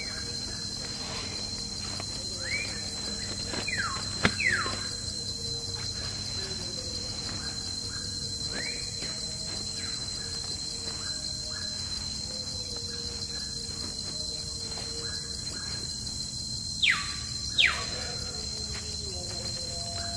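Steady high insect drone of the forest, with scattered short squeaky chirps. Two louder falling squeals come near the end, and a single sharp knock about four seconds in.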